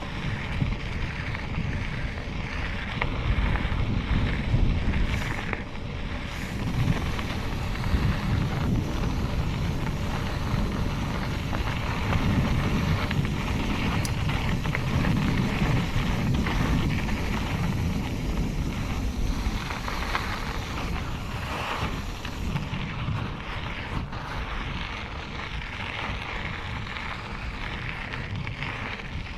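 Wind buffeting the camera's microphone with a heavy, uneven low rumble throughout, as when riding a mountain bike on a dirt trail.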